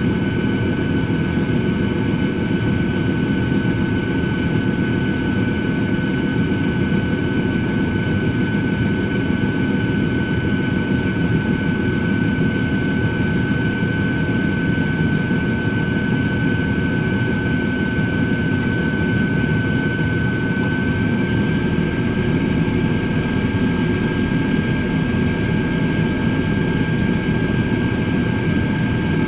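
Cosori 13-quart air fryer oven running: a steady fan rush with a high whine over it, the whine stepping up slightly in pitch about two-thirds of the way through.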